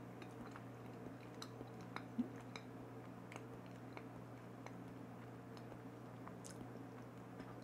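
Faint mouth sounds of a person tasting a creamy homemade whipped salad dressing off a knife: soft lip smacks and tongue clicks while chewing it over, with a slightly louder click about two seconds in, over a steady low hum.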